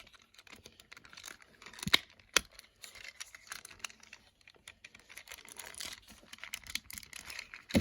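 Plastic parts of a Transformers Prime Ratchet deluxe action figure clicking and scraping as they are worked loose by hand, with a few sharper clicks about two seconds in and near the end.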